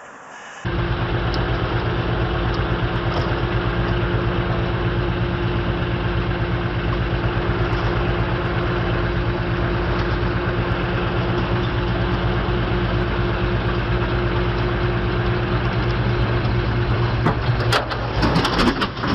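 A large vehicle engine running steadily at a constant pitch. It cuts in abruptly about a second in, and there is a burst of sharp knocks and clatter near the end.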